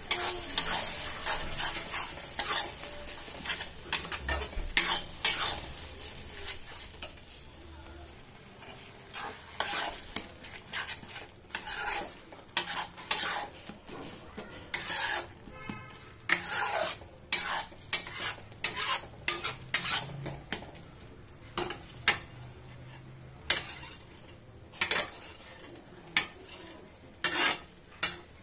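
Steel spatula stirring and scraping a thick masala paste of ground poppy seed around a wok, with irregular scrapes and clacks against the pan. The paste sizzles in hot oil as the masala fries.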